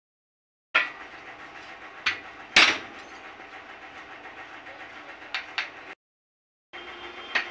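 A handful of sharp metal knocks and clinks, the loudest about two and a half seconds in, over a faint steady background hum. They come from a steel rod welded onto the race of a scooter's starter-clutch bearing being worked in a bench vise to pull the race free. The sound cuts to silence briefly at the start and again near the end.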